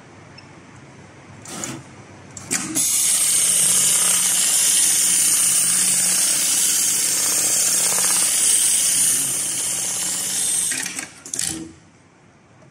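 HighTex MLK500-2516ECO programmable heavy-duty pattern sewing machine stitching a box-X pattern through multi-ply synthetic webbing of a cargo lashing strap. A couple of clacks come as it starts, then it sews fast and steadily for about eight seconds. It stops with a few more clacks near the end.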